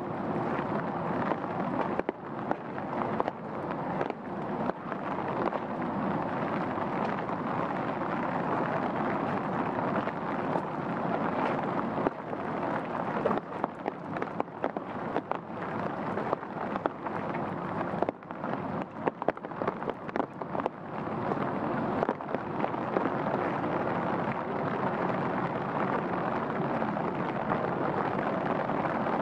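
Steady rain falling, a dense even hiss with many close, sharp drop hits scattered through it.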